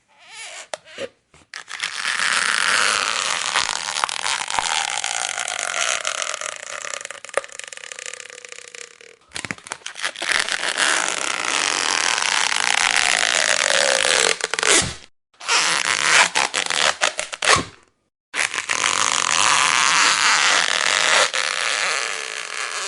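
Prank sound effects: long hissy, fart-like noises whose pitch slides slowly downward, with a brief patter of sharp clicks partway through.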